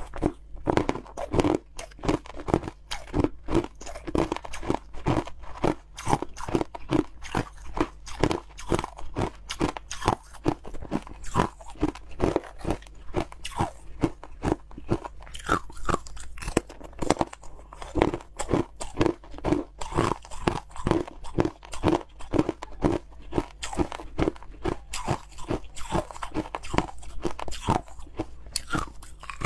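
A person biting and chewing chunks of soft white ice, close to a clip-on microphone: a steady run of crisp crunches, a few a second.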